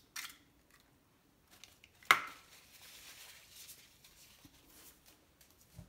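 Kitchen prep handling: a single sharp knock about two seconds in, followed by a few seconds of faint rustling and a small click near the end.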